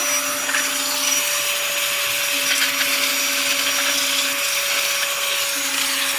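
Electric air blower running steadily, a constant motor whine over a loud rush of air, as it blows dust out of a submersible pump starter box.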